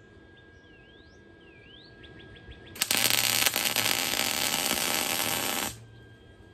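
Arc welder laying a short weld on a clamped steel part: a loud, even sizzle that starts abruptly about three seconds in and cuts off after about three seconds. Faint bird chirps come before it.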